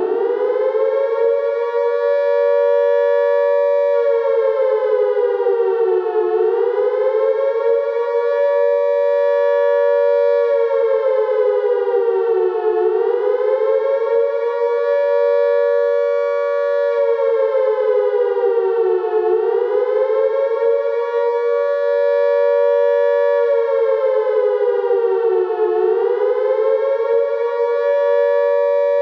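British Second World War air raid siren sounding the warning. It is a wailing tone of two close pitches that climbs to full pitch in the first second, then holds high, sags and climbs back about every six and a half seconds. This rise-and-fall is the alert signal for an air raid.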